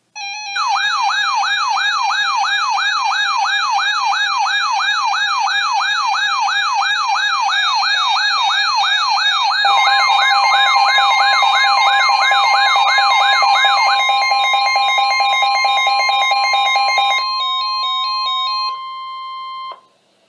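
Electronic alert siren sweeping rapidly up and down, about three sweeps a second, layered with steady and stepping alarm tones. A single steady alert tone near 1 kHz carries on alone and cuts off suddenly near the end.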